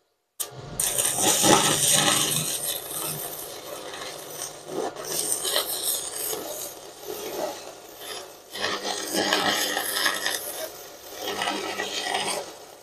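Stick-welding arc from a Fugu TB-250 DC inverter welder at full current, burning a 12-gauge electrode. It crackles steadily after striking up just after the start, dips briefly a little past eight seconds in, and goes out just before the end.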